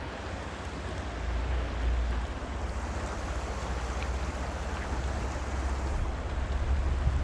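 Steady rush of a fast-flowing river, with wind buffeting the microphone as a low, uneven rumble.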